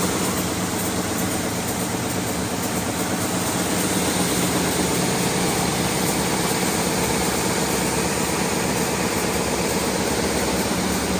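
R-RP1300 wide belt sanding machine running under test, its motors and sanding belt making a steady, even drone with a low hum.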